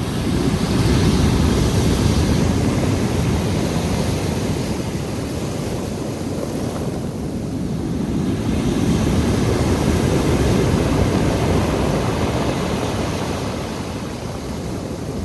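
Black Sea surf breaking and washing on the shore, swelling and easing every few seconds, with a heavy low rumble.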